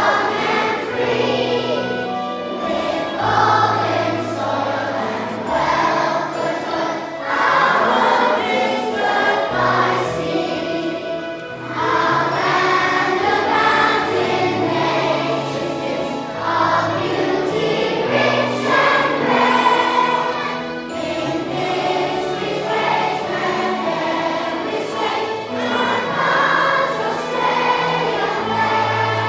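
A choir or congregation singing a hymn together with instrumental accompaniment, in sustained phrases over a moving bass line.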